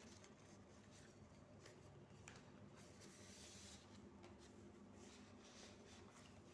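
Near silence: faint rustling and scratching of paper documents being handled, with a few soft ticks, over a low steady hum.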